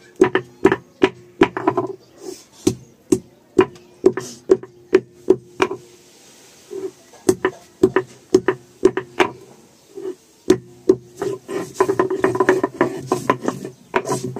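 A hand-held grinding stone (batta) is rubbed and rocked over a flat sil stone, grinding wet turmeric into paste. It makes a steady run of scraping knocks, about two or three strokes a second, with a short pause about six seconds in and quicker, denser strokes near the end.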